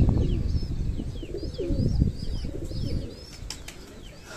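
Domestic pigeons cooing, with short high chirps from other birds repeating throughout and a low rumble under the first few seconds.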